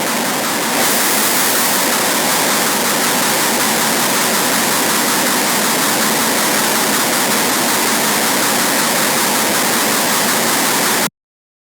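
Harsh noise wall: a dense, unchanging wall of static noise, heaviest in the upper range and thin in the bass. It brightens slightly about a second in and cuts off suddenly near the end.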